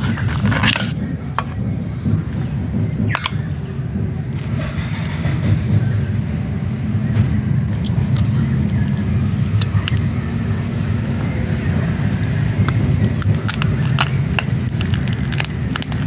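A steady low rumble throughout, with scattered sharp clicks and clinks of a metal spoon against a steel basin as crab pieces are handled, several in quick succession near the end.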